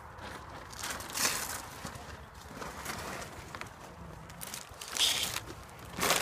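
Rustling and scuffing handling noises: three short, louder rustles about a second in, about five seconds in, and near the end, over a faint background.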